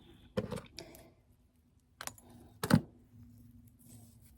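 Small metal jingle bells jingling briefly in short bursts as they are handled, four or so short jangles with the loudest after about two and a half seconds.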